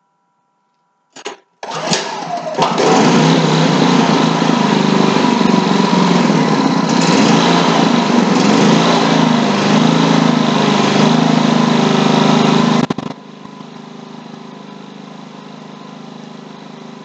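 Ryobi 4000-watt open-chassis inverter generator's small gasoline engine starting up on its first run: a short burst about a second in, then it catches and runs loud with its speed wavering. About 13 seconds in it turns abruptly much quieter and runs on steadily.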